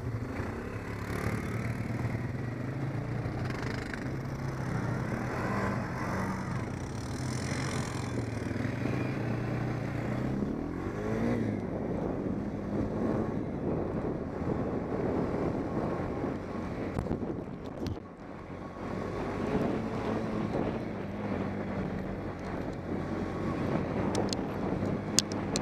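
ATV engine running as the quad rides along a gravel trail, its pitch rising as it speeds up about ten seconds in and again later. A few sharp clicks near the end.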